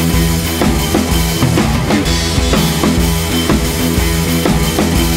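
Background rock music with a drum kit keeping a steady beat over sustained bass notes.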